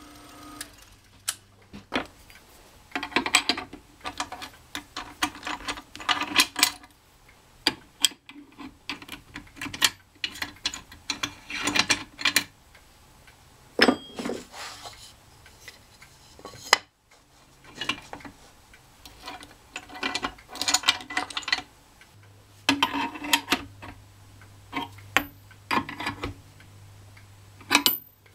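Scattered metallic clicks, clinks and short clatters as hold-down clamps, bolts and the wooden workpiece are handled and repositioned on a stopped drill press table, over a faint steady low hum.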